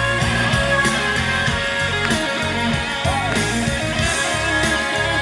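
Instrumental break of a Dutch pop song played live through PA speakers: guitar over a steady beat.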